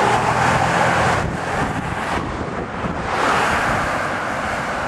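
Strong wind buffeting the microphone in gusts. It eases for a couple of seconds in the middle and then picks up again.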